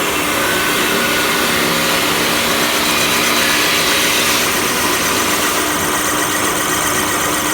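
A motor running steadily and loudly, its upper hiss easing slightly about four and a half seconds in.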